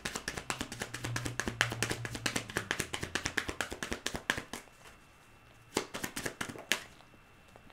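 A fast run of light, sharp taps or clicks that stops about four and a half seconds in, followed by a few separate, louder clicks.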